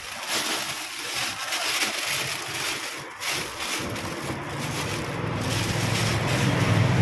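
Plastic bag crinkling and rustling while it is handled and emptied. From about four seconds in, a passing motor vehicle's engine rumble rises and grows louder toward the end.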